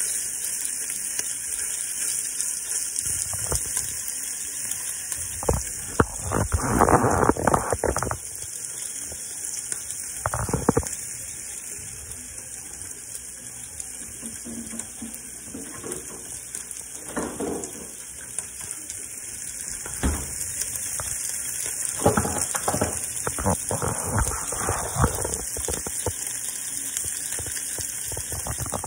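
Spiny dogfish fillets frying in olive oil in a nonstick pan, a steady sizzle. Several times a utensil scrapes and knocks against the pan as the pieces are moved.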